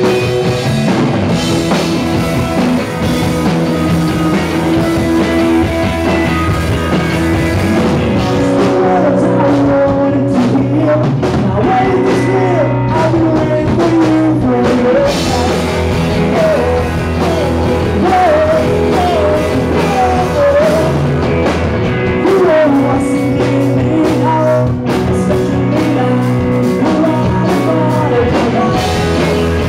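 Live rock band playing through amplifiers: electric guitar, bass guitar and drums, with a voice singing over them.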